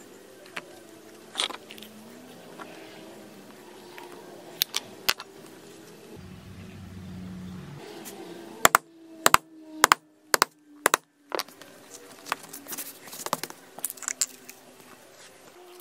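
Steel wing dividers and small hand tools clicking and tapping on leather over a cutting mat. A quick run of about seven sharp clicks comes a little past halfway.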